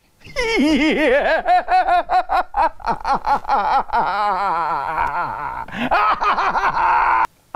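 A man laughing hard and excitedly, a long run of rapid, pulsing laughs that cuts off abruptly near the end.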